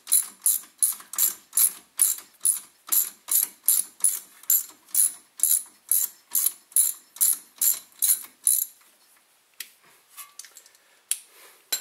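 Ratchet wrench clicking in an even rhythm of about three clicks a second as it backs out the brake caliper's slide pin with an 8 mm hex bit. The clicking stops about nine seconds in, and a few faint taps follow.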